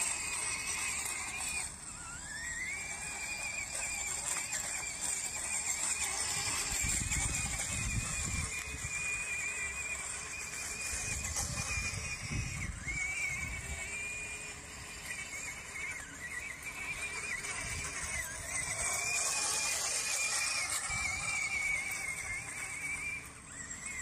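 Electric drive motors and gearing of a Bwine Q111 tracked RC crawler, whining as it drives. The high whine wavers and glides up and down in pitch as the speed changes, over a steady hiss, with some low rumbling in the middle.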